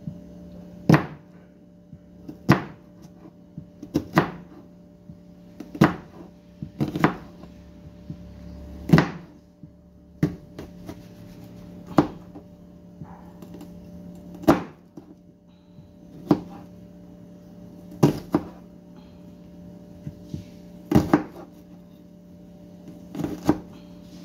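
Knife cutting through a white onion onto a cutting board, a sharp knock with each cut, about a dozen spaced one to two seconds apart, over a steady low hum.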